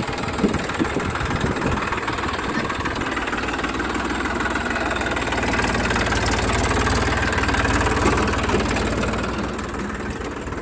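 Eicher 480 tractor's diesel engine idling steadily with an even low beat, getting a little louder in the middle and easing back near the end.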